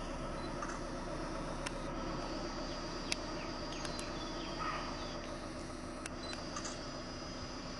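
A handful of sharp camera shutter clicks from tourists photographing, spaced irregularly over a steady background hiss with a faint low hum.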